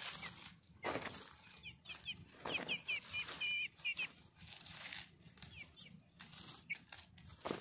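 Leafy branches rustling and crinkling as they are handled, in irregular bursts. A run of short, high bird chirps comes through about two to four seconds in, with a couple more near the end.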